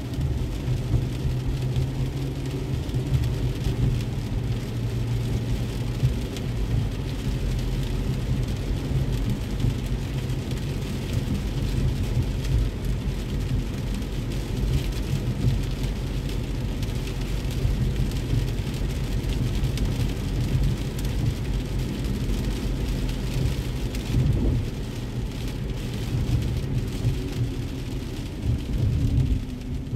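Heavy rain falling on a car's roof and windshield, heard from inside the cabin, over the steady low rumble of the engine and tyres on a wet road.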